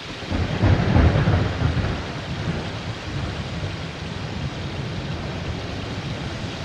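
Heavy rain falling steadily, with a low rumble of thunder swelling about half a second in and fading after a second or so.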